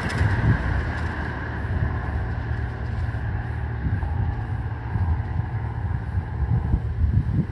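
Engine noise of an aircraft climbing away after takeoff: a steady high whine that slowly fades, under gusty wind rumble on the microphone.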